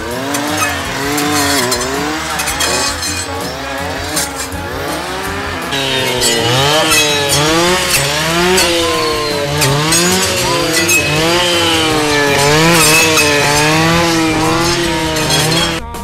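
Two-stroke clearing saws (brush saws) revving up and down again and again as they cut through young trees, the engine pitch rising and falling in quick repeated swells. It grows louder and brighter about six seconds in.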